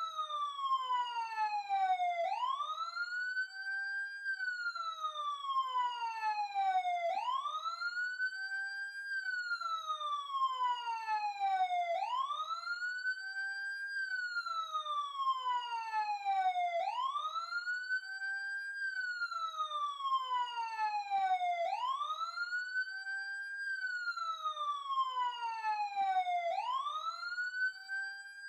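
Ambulance siren sounding a slow wail: each cycle sweeps quickly up in pitch, levels off, then falls steadily, repeating about every five seconds at an even loudness.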